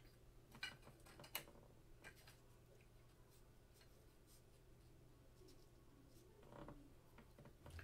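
Near silence with a steady low hum. In the first two seconds come three faint clicks from a trading card in a rigid plastic holder being set into a clear plastic display stand.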